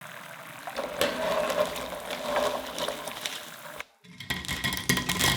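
Kitchen food-preparation sounds: a steady hiss dotted with light clicks, then after a brief break a little before four seconds in, a second bout of clinks and taps.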